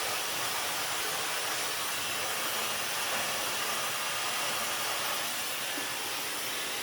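Dyson hair dryer with a styling concentrator fitted, running steadily on its second power setting as it blows on hair, a constant airy hiss.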